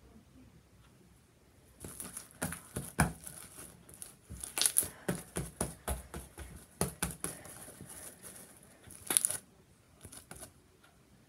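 Sticky slime worked by hand, stretched, squeezed and pressed against a tabletop: a dense run of irregular crackles and small pops that starts about two seconds in and stops about nine and a half seconds in.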